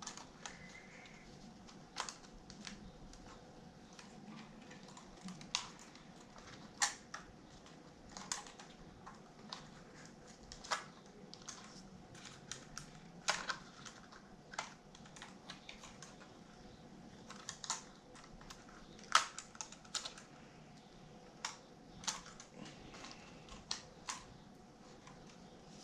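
Scattered light clicks and taps, irregular and one every second or so, as small drone parts and their packaging are handled.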